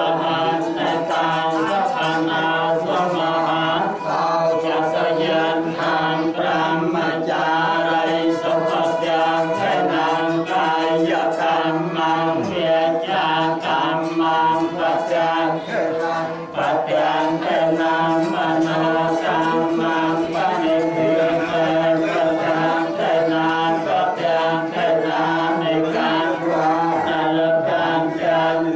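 Several voices chanting a wedding blessing together in a steady, droning recitation that stays on one held pitch without pauses.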